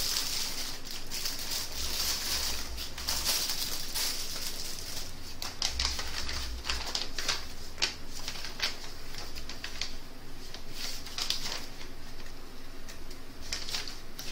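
A clear plastic packaging bag and a sheet of printed paper crinkling and rustling as they are handled and unfolded, with many small sharp crackles.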